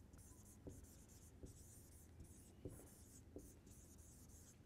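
Faint scratching of a marker pen writing on a whiteboard, in short strokes with a few light taps between them.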